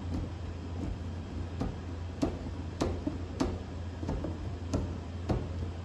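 Sharp ticks at an even pace, about three every two seconds, over a steady low hum.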